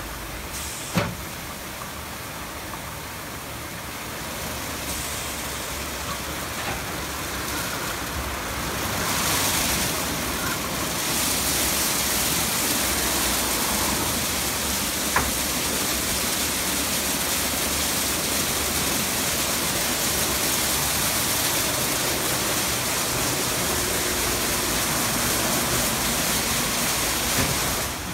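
Istobal M12 rollover car wash running, its spinning Carlite brushes working over a car with a steady rushing wash of water and brush noise that grows louder about nine seconds in. A sharp knock sounds near the start and another about halfway through.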